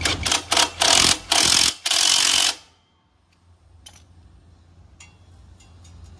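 Impact wrench (rattle gun) run in several loud short bursts, the last the longest, tightening nuts as a motorcycle's drive chain is adjusted. It stops about two and a half seconds in, leaving a few faint clicks.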